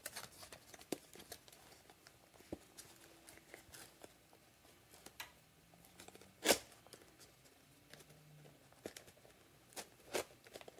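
Faint scratching and scattered clicks of a tight-fitting square cardboard phone box being pried open by hand, with one sharper, louder click about six and a half seconds in. The box is very difficult to pry open.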